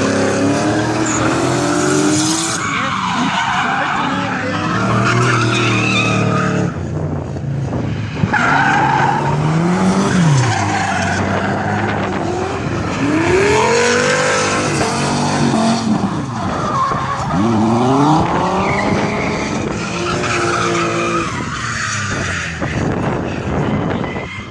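Drift cars sliding through a corner one after another, engines revving hard with the pitch rising and falling as the throttle is worked, over continuous tyre screech.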